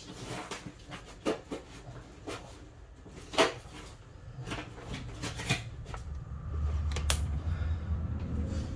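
Small hard-plastic toy pieces clicking and tapping as they are handled and pressed together: scattered sharp clicks, the loudest about three and a half seconds in. A low rumble comes in under them over the last two seconds.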